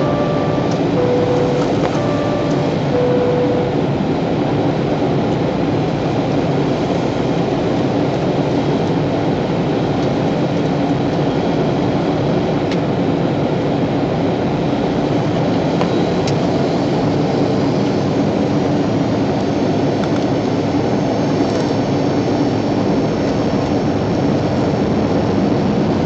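Steady cabin noise inside a Boeing airliner on approach: a constant jet-engine and airflow rush. In the first few seconds there are two short two-note tones, each stepping from high to low.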